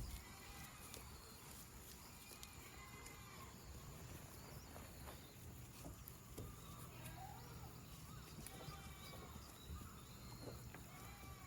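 Faint outdoor ambience: a low steady rumble, a few soft knocks, and faint short chirping calls scattered throughout.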